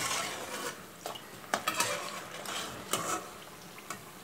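Slotted steel spatula scraping and clinking against a metal kadai while scooping fried thattai out of hot oil, a few irregular clinks over a faint sizzle of the oil.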